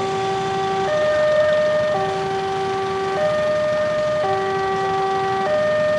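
Railroad crossing warning alarm sounding an electronic two-tone signal. A lower and a higher tone alternate, each held about a second. It is the warning that a train is approaching the crossing.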